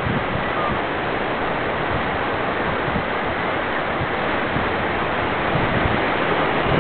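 Steady rushing noise of wind and distant surf, with a gusty low rumble of wind on the microphone.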